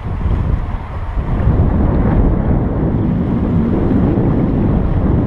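Wind rumbling on the microphone aboard a sailing catamaran under way, over the wash of water; the rumble grows louder about a second and a half in.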